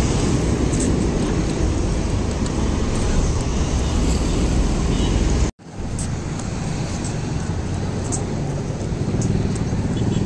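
Steady road-vehicle and traffic noise with a heavy low rumble. It cuts out abruptly for a moment about halfway through, then carries on slightly quieter.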